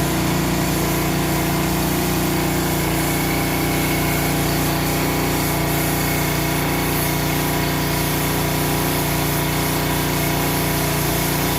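An engine running steadily at an even speed over a constant hiss.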